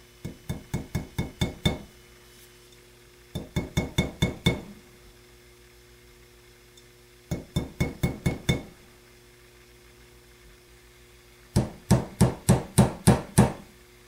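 Small hammer tapping a copper crimp terminal on a cast-steel bench anvil in four quick runs of about seven to nine light, ringing strikes each, about five a second. The blows close the terminal's spade fork into a smaller hole.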